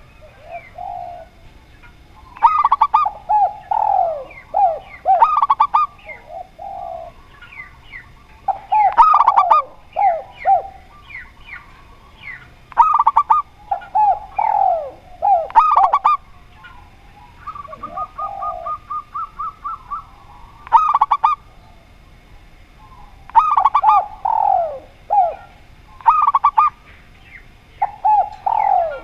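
Spotted dove and zebra dove cooing, each phrase a quick series of falling notes, repeated again and again. A rapid run of short, even notes comes just past halfway.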